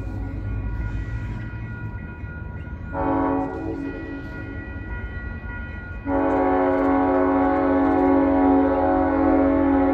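Nathan M5 five-chime air horn on an EMD SD40 diesel locomotive sounding a short blast about three seconds in, then a long loud blast from about six seconds in, over the low rumble of the approaching train.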